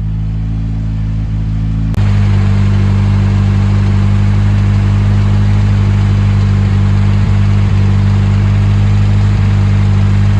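Freshly rebuilt Nissan SR20DET turbocharged four-cylinder engine idling steadily, with a step up in loudness about two seconds in.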